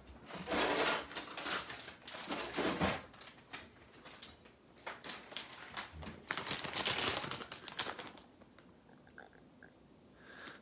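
Rummaging in a kitchen: bursts of rustling with light clicks and knocks, three times, then near quiet for the last couple of seconds.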